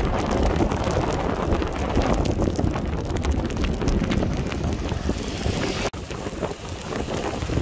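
Vehicle driving on a rain-soaked road in heavy rain: steady rumble and hiss with wind on the microphone and rain tapping throughout. A sudden break about six seconds in, after which heavy rain falls on standing floodwater with wind still on the microphone.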